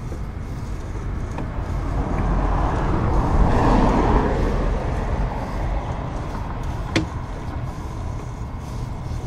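Motor-vehicle traffic noise: a steady low engine rumble, with a vehicle passing that swells and fades about three to five seconds in. A single sharp click sounds about seven seconds in.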